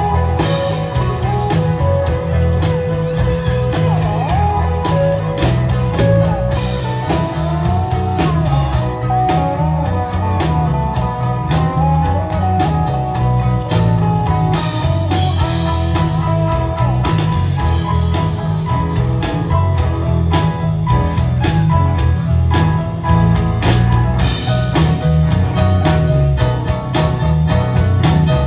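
Live country-rock band playing an instrumental break with no vocals: an electric guitar lead with bent notes over bass and drums.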